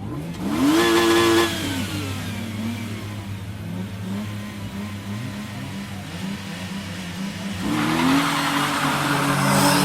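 Street-racing car engine revving sharply once and dropping back to a steady rumble, then revving up again near the end as a loud rush of noise builds, as the car pulls away.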